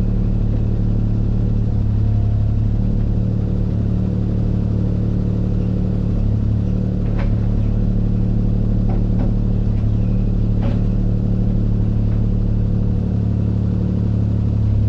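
Diesel engine of a compact construction machine running steadily at a constant speed, with a few light knocks about seven, nine and eleven seconds in.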